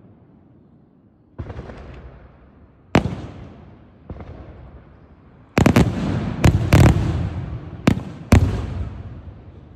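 Aerial firework shells bursting. A few separate booms come in the first half, then a quick run of about six sharp bangs from about halfway through, each trailing off in a rumbling echo.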